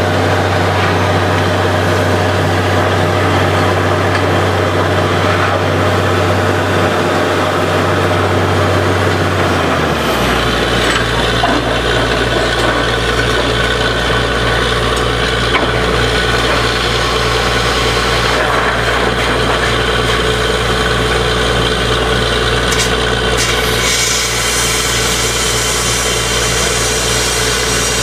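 Borewell drilling rig running steadily, a loud machine drone with a hiss of drilling noise over it. About ten seconds in, its low drone changes abruptly to a deeper note.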